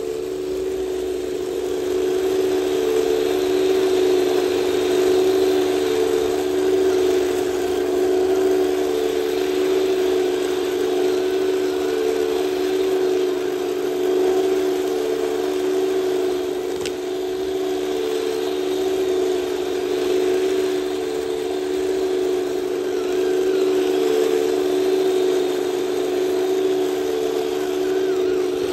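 Heng Long 1/16 RC Panzer IV F2 tank driving through sand: the imitation engine sound from its onboard sound unit drones steadily, over the whir of its drive motors and gearbox. There is a single click about two-thirds of the way through.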